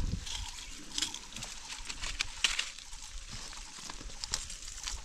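Leaves and twigs of a phak wan tree rustling and crackling, with irregular sharp clicks and snaps, as hands reach into the branches and pick off flower clusters.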